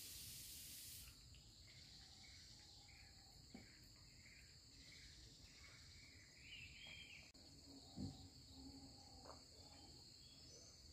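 Faint sounds of a puppy eating from a stainless-steel bowl: a few soft clicks and one louder knock about eight seconds in, over a steady high drone of crickets. A hiss stops about a second in.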